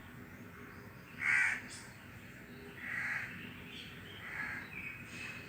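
Crows cawing: three separate harsh caws a second or two apart, the first the loudest. A low rush of wind lies under them throughout.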